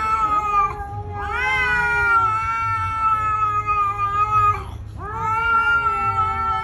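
A cat yowling in long, drawn-out, steady-pitched calls. One call ends just after the start, then two more follow, each held for about three and a half seconds with a short break between.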